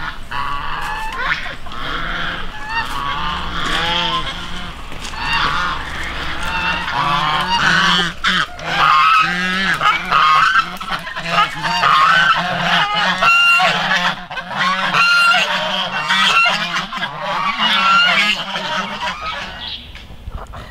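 Domestic geese honking over and over in quick, loud calls. The calls stop shortly before the end.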